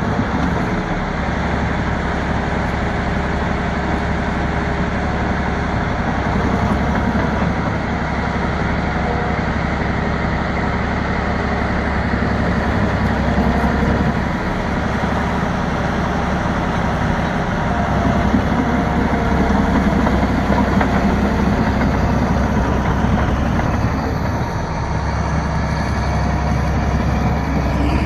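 Bulldozer's diesel engine running steadily, its level holding even with only small rises and dips.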